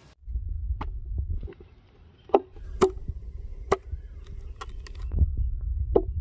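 Heavy cleaver chopping through raw chicken and bone into a wooden cutting board: about six sharp chops at uneven intervals, over a low rumble.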